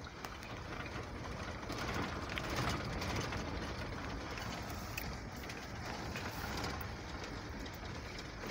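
Vehicle driving slowly on a dirt road, heard from inside the cab: a steady low engine and tyre rumble, with scattered small clicks and rattles from the rough surface.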